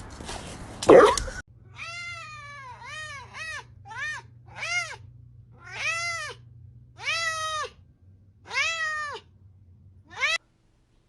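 A cat meowing about nine times in a row, each meow rising and then falling in pitch. It is preceded by a loud noisy burst lasting about a second and a half, and the meowing cuts off suddenly near the end.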